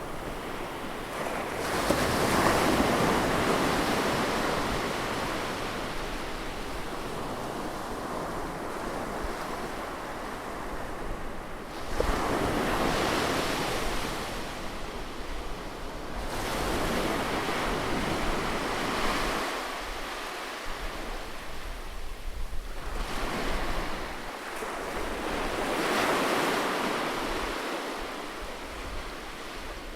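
Ocean waves breaking on a beach: a steady wash of surf that swells into four loud surges as waves come in and ebbs between them.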